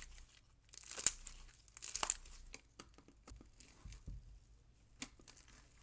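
Slushy clear slime full of beads being stretched and squeezed by hand, giving irregular crinkly crackles and sharp little clicks in short bursts about a second apart.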